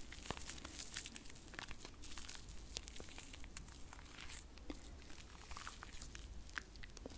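Hands rubbing and brushing together close to the microphone: soft swishes that come and go, with many small crackling clicks.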